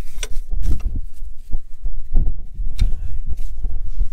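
A few sharp, irregular metal clicks and knocks as a wrench works a bolt on a tractor's cast-iron exhaust manifold, over a loud, fluctuating low rumble of wind on the microphone.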